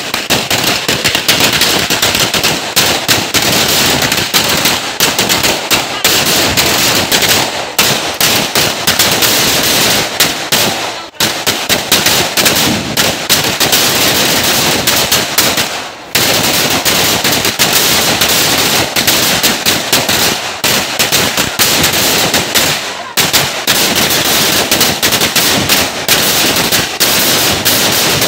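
Firecrackers going off in rapid succession, a dense continuous crackle of bangs with a few brief breaks.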